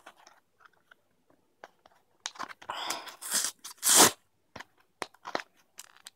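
Plastic blister packaging being crackled and pulled open by hand: scattered clicks and crinkles, a longer run of crackling about two and a half seconds in, and the loudest crack about four seconds in.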